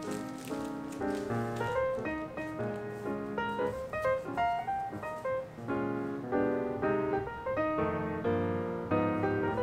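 Background instrumental music: a quick run of piano notes changing several times a second.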